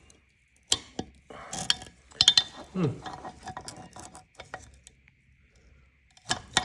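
Small metal cylinder-head parts of the engine clinking and scraping against each other as they are handled and pulled out, in a few short clusters of sharp clicks.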